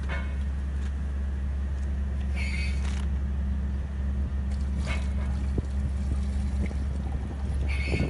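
A steady low machine drone with a few short scraping clinks as a plastic bucket of wet aerated-concrete slurry is handled. Near the end the slurry starts pouring out of the bucket.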